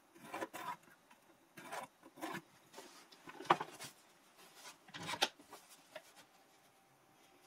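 Hand-work noises: a pencil marking on OSB board, then a Festool aluminium guide rail rubbed and set in place against the board, a string of short scrapes and knocks with the sharpest about three and a half and five seconds in.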